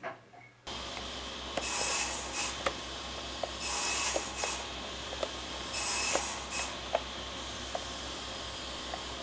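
Utility knife blade scoring and cutting through a thin clear plastic cup: a series of short scratchy strokes, each up to about half a second long, with small clicks between, over a steady low hum. The strokes stop about two-thirds of the way through.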